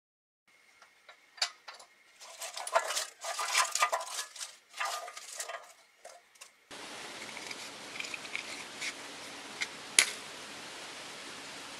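Dry pine cones being handled and piled into a cast-iron forge firepot, rustling and knocking against each other and the iron. Then a steady background hiss, with a match struck on its box about ten seconds in.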